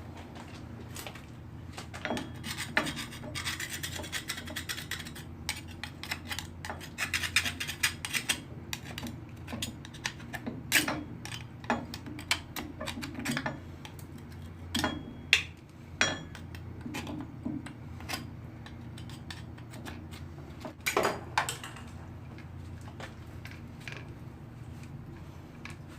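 Cleaning work on the metal parts of a wet-pipe sprinkler alarm valve. For several seconds there is scrubbing and scraping, then scattered sharp metallic clinks and knocks, all over a steady low hum.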